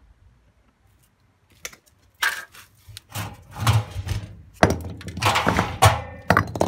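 Bricks banging around inside the drum of an old Indesit W133 front-loading washing machine: irregular, heavy knocks and crashes that start about two seconds in and come thicker toward the end.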